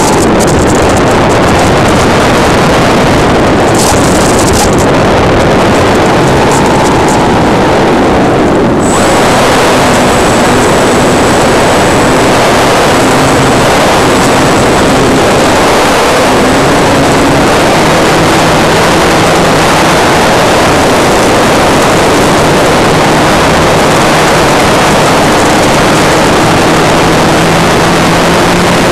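Loud, steady rush of wind buffeting the onboard microphone of a flying RC combat model plane, mixed with the hum of its motor and propeller, whose pitch wanders up and down faintly. About nine seconds in the rush turns brighter and hissier.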